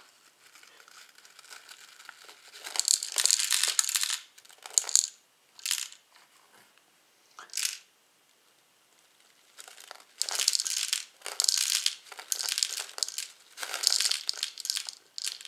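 Steel BBs rattling and clinking as they are poured from a small plastic container into the BB gun's loading port, in two stretches of rattling with a short quiet gap between them.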